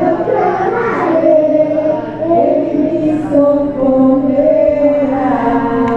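A group of young children singing together into microphones through a PA system, holding long notes in the second half.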